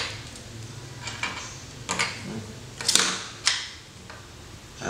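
Small plastic parts of a bicycle computer kit being handled and set down on a table: several separate sharp clicks and knocks, roughly a second apart.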